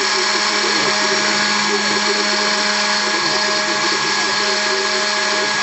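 HobbyCNC router milling a guitar pickup part: the spindle runs at a steady pitch while the stepper-driven axes add a warbling tone that keeps shifting in pitch as the cutter moves.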